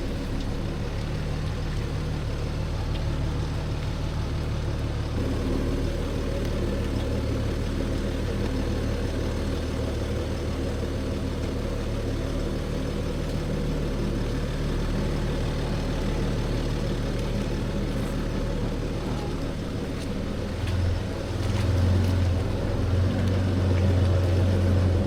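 Diesel Jeep Gladiator engine running steadily at low speed while crawling a rocky trail, then louder from about 21 seconds in as it takes on more load.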